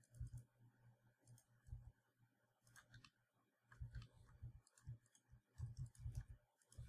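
Faint, scattered clicks of a computer mouse and keyboard being worked, with a few soft low thumps.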